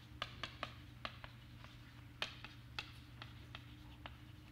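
Chalk tapping against a blackboard while writing: a string of light, irregular clicks over a steady low hum.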